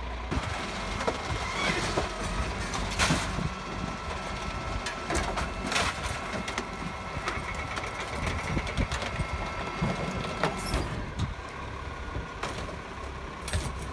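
Rear-loading garbage truck running at the kerb while bulky rubbish is thrown into its rear hopper, with several sharp clanks and knocks. A thin steady whine sounds from about four seconds in until near eleven seconds.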